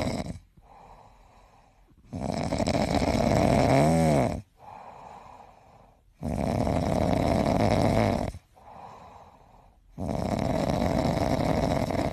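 A cat snoring: three loud snores about four seconds apart, each lasting about two seconds, with softer breaths between them.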